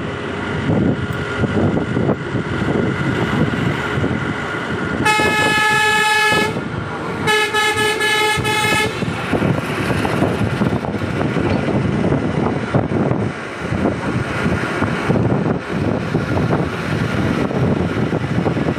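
Two long vehicle-horn blasts, each about a second and a half, about five and seven seconds in. Underneath is the steady rumble of road and wind noise from riding in a moving vehicle.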